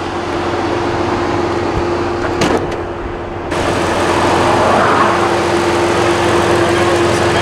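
A car running, with a steady engine-and-road rumble and a held hum, and a single sharp click about two and a half seconds in. Partway through the sound turns suddenly brighter and a little louder.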